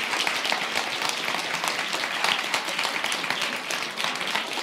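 Large crowd applauding steadily, a dense patter of many hands clapping.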